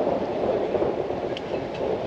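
Steady rumble of road traffic crossing the concrete bridge directly overhead, heard from the catwalk beneath it.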